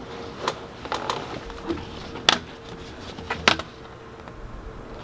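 Plastic window adapter plate and corrugated exhaust hose of a portable air conditioner being handled and pushed into a van's window frame: scattered knocks and clicks, with two sharper clacks about two and three and a half seconds in.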